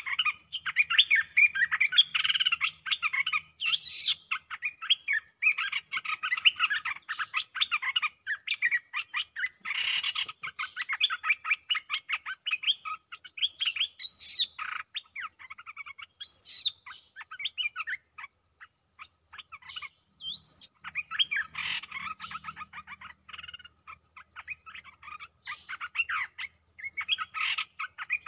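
Bulbuls singing in repeated bursts of quick, bubbly chattering phrases, with a few short rising whistles: a caged decoy bulbul and a wild bird drawn in to it. A steady high insect drone runs underneath.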